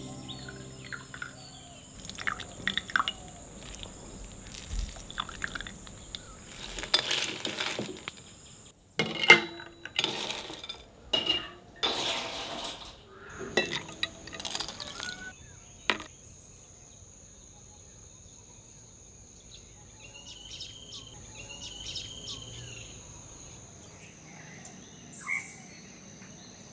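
Liquid pouring and splashing into tall drinking glasses, with clinks of glass and ice, in a string of short splashes through the first fifteen seconds or so. After that it goes quieter, with a steady high-pitched insect drone and a couple of bird chirps.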